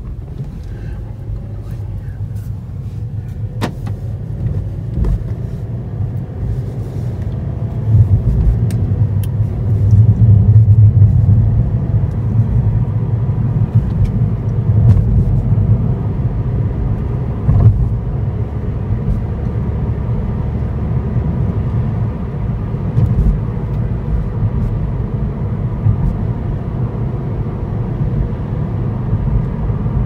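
Car driving: a steady low engine and road rumble that grows louder over the first several seconds as it picks up speed, then runs on evenly, with a few scattered light clicks.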